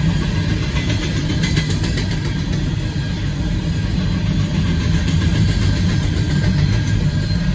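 Steady low rumble of a freight train's covered hopper cars rolling past a grade crossing, heard from inside a car waiting at the gates.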